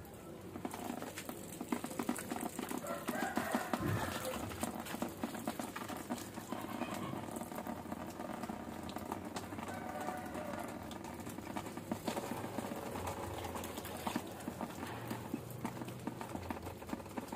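Water poured from a plastic jug pattering and splashing onto aglonema leaves and potting soil, running down onto the pots below.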